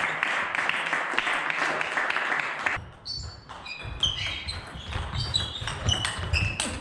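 Table tennis rally: the ball clicking off the rackets and table in quick succession, with short squeaks of shoes on the floor, in the second half. The sound echoes in a large sports hall.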